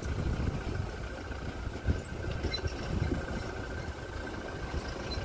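An off-road vehicle's engine idling steadily.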